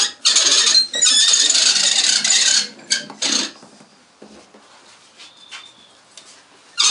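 Hand-cranked pasta machine being turned, its gears and cutting rollers giving a loud rasping rattle as a sheet of dough is cut into thin noodles. The cranking runs for about two and a half seconds, a short burst follows about three seconds in, and it starts again right at the end.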